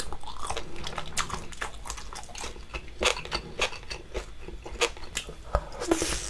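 Close-miked chewing of spicy braised seafood: a run of wet mouth clicks and smacks. Near the end there is a louder, wetter sound as the next sauced piece is taken into the mouth.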